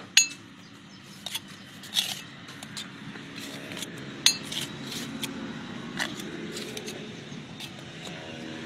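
Bricklaying with a steel trowel and fired clay bricks: irregular sharp clinks and knocks of the trowel and bricks, with some scraping through the mortar. The loudest clinks come just after the start and about two seconds in.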